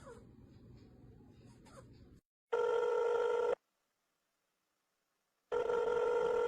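Telephone ring tone: a steady electronic beep about a second long, sounding twice with about two seconds of silence between.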